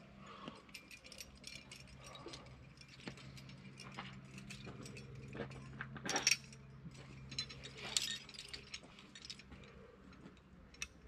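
Irregular light metallic clicks and jingles of climbing hardware, carabiners and quickdraws clinking with rope handling, with two sharper clatters about six and eight seconds in, over a faint steady low hum.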